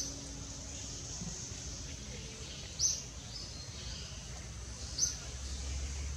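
Outdoor forest ambience: a bird gives three short high chirps a couple of seconds apart, over a steady high insect drone and a low rumble.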